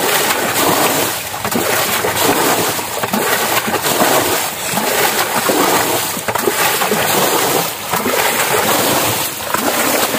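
Water being bailed by hand with a plastic bucket: repeated scoops and splashes as the bucket is dipped and its water thrown out, about one every second and a half, to lower the water in a shallow pool.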